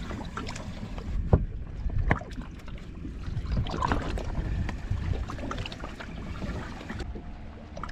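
Scattered knocks and bumps of handling gear and fish in a fishing boat, over a steady low rumble of wind on the microphone; the sharpest knock comes about a second and a half in.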